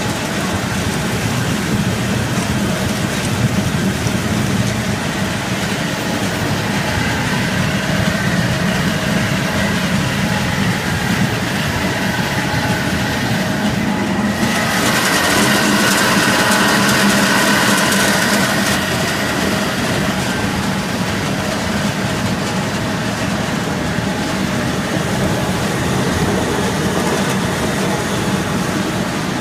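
Milestone seed potato cutter and its conveyors running steadily, a dense mechanical rattle of the machine and the potatoes passing through it. About halfway through, a louder hiss rises over the machine noise for a few seconds.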